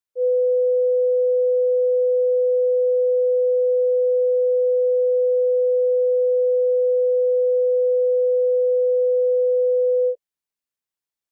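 Emergency-alert attention tone: a single steady, loud pure tone held for about ten seconds, then cut off abruptly, announcing the alert message that follows.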